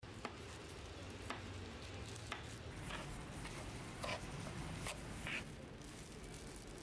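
Faint food-prep sounds over a low steady hum: a knife clicking down through pineapple onto a wooden board about once a second, then a wooden spatula scraping and stirring in a pan.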